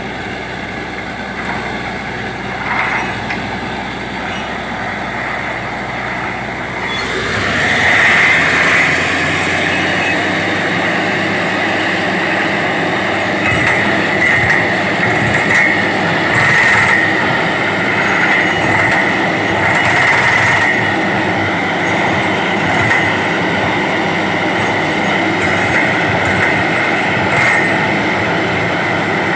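Borewell drilling rig running steadily. About seven seconds in it gets louder and a high, steady metallic squeal joins in and carries on.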